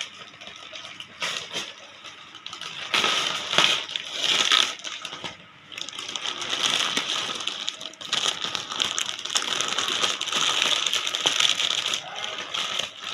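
Gift packaging being unwrapped: rustling, crinkling and tearing in long stretches from about three seconds in, with a quieter start.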